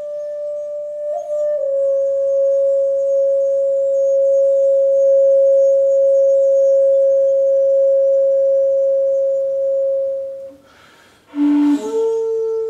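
Background music: a flute holds one long, steady note for about ten seconds, with a slight pitch bend a little over a second in. Near the end, after a breathy attack, it sets in on a new, lower note.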